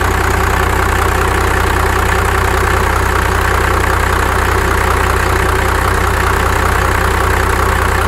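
The 1995 Dodge Ram's 5.9-litre Cummins inline-six turbodiesel idling steadily.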